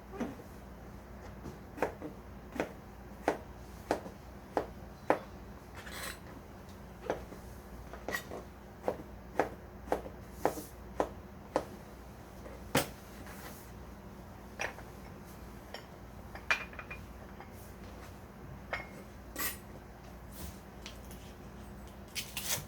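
Kitchen utensils knocking and clinking: a regular run of knocks, about one and a half a second, then a single louder knock and scattered clinks, a few of them ringing briefly.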